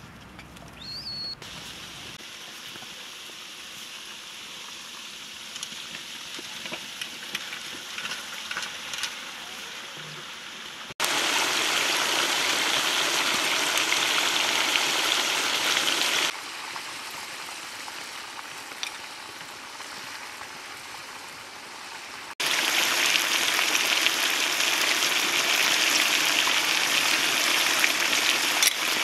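Sliced potatoes sizzling in oil in a large wok over a fire: a loud, steady sizzle that starts suddenly twice, about 11 seconds in and again about 22 seconds in. Between these stretches there is a quieter hiss with a few faint clicks.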